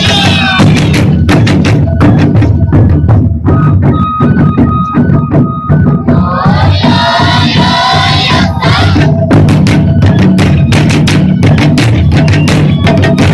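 Taiko drum ensemble playing dense, rapid strokes with deep drum hits and sharp rim-like clicks. A held high note sounds about four seconds in, followed by a stretch of voices calling out over the drumming.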